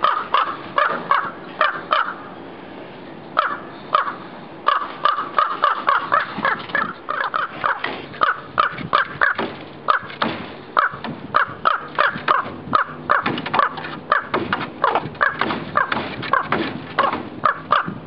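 Common raven giving a rapid series of short, loud calls, two or three a second, with a couple of brief pauses in the first five seconds: a nesting raven scolding an intruder who is approaching its nest.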